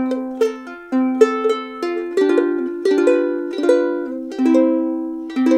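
A ukulele playing a steady tune of plucked notes and chords, about two to three a second, each ringing and fading. It is recorded through a Comica mini shotgun microphone plugged into an iPhone, as a reference for how that mic sounds.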